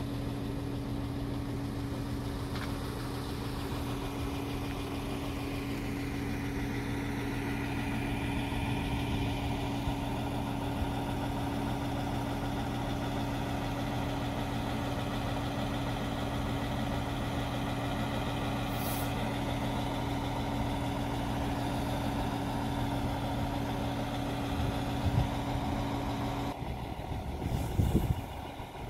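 RA2 diesel railcar's engine idling at a standstill: a steady low hum with a constant pitch. Near the end the hum breaks off and there is a brief louder low rumble.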